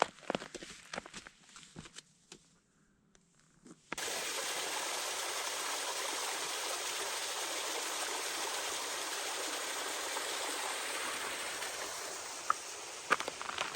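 Footsteps on the trail at first, then after a brief near-silence a steady rush of running water from a mountain stream, which cuts in suddenly and continues until footsteps resume near the end.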